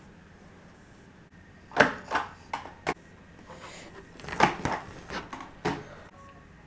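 Sharp knocks and clicks from handling a bullhead catfish and a plastic clamp on a cutting board, in two irregular clusters of a few strokes each, the first about two seconds in.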